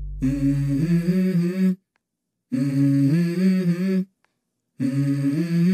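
Background music: a wordless vocal melody, the same short phrase sung three times with complete silences between.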